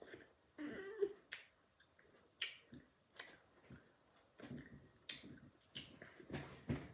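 Sharp clicks from a child, coming irregularly about once a second, with soft vocal sounds in between.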